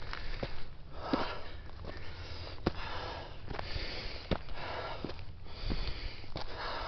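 A hiker breathing hard from a steep uphill climb, with loud, rhythmic breaths about once a second. Sharp footfall clicks on dirt fall between the breaths.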